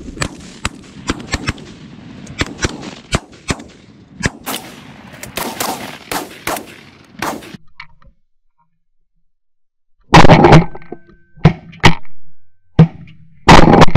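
Shotguns firing in a rapid volley of many shots from several hunters shooting geese. After a short silence, about five very loud close shotgun blasts follow, recorded at the gun barrel.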